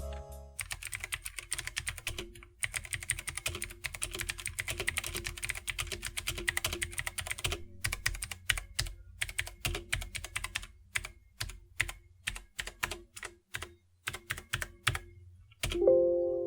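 Typing on an Ajazz AK33 mechanical keyboard with clicky blue switches: a fast, dense run of key clicks, then slower, separate keystrokes in the second half. Music comes in near the end.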